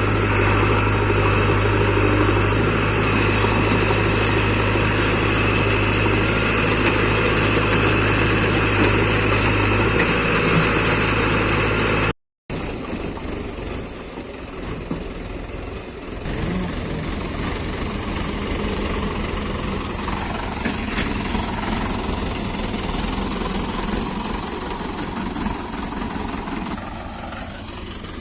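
Heavy diesel engine running steadily, with a strong low hum. About twelve seconds in, the sound cuts out for a moment, then engine noise continues, quieter and with a different tone.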